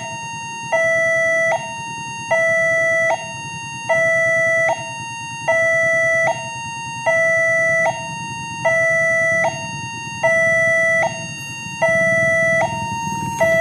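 Electronic warning alarm of a railway level crossing sounding a steady two-tone hi-lo signal, each tone held about 0.8 s, while the barrier is down for an approaching train. A low rumble builds under it near the end.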